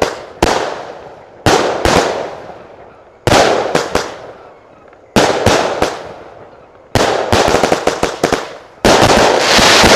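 Allevi 48-shot, 20 mm pressed-tube firework cake firing: sharp reports every second or two, each dying away over about a second. About seven seconds in comes a quick run of crackling pops, and near the end a dense crackle.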